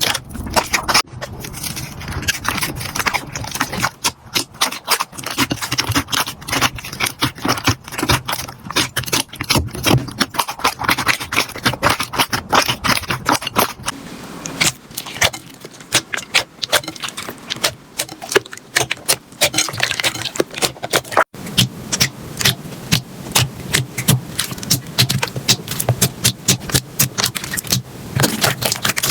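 Slime being squeezed and poked close to the microphone, giving a dense, fast run of small crackling pops and clicks. The texture changes abruptly twice, as one slime gives way to another.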